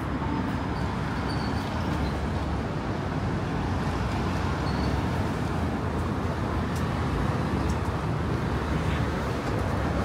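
Steady road traffic noise on a city street, a low, continuous rumble of passing cars and buses.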